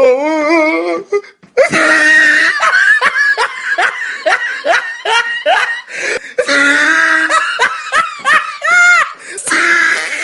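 People laughing hard, in quick repeated bursts.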